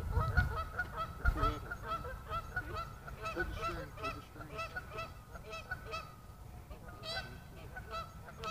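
Geese honking continually, many short calls overlapping, several a second. Two low thumps on the microphone in the first second and a half.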